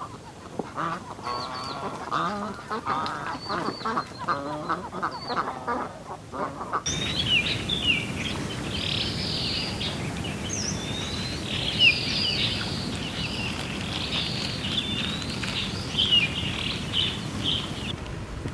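A flock of ducks quacking in quick, overlapping calls, then, about seven seconds in, an abrupt change to many small birds chirping and twittering over steady background noise.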